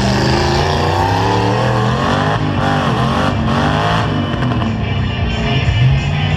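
Several demolition-derby pickup truck engines revving hard, their pitch rising and falling as the trucks accelerate and back off, over a heavy low rumble, with music playing alongside.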